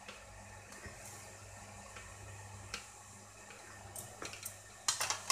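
Stainless steel idli plates knocking and clattering against each other, a few light knocks building to a louder clatter near the end, over a faint steady hiss.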